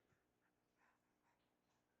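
Near silence: room tone in a pause between the baby's sounds.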